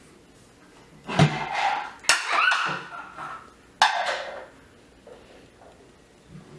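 Plastic toy-kitchen dishes and oven door knocking and clattering as a child handles them: a few separate knocks, about one, two and four seconds in.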